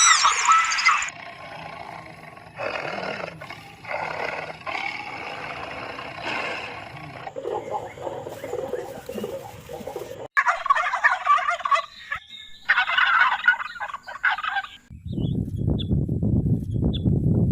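A string of different animal calls, cut one after another, with loud bursts of rapid, rattling bird-like calls near the middle, then a low rough rumbling noise near the end.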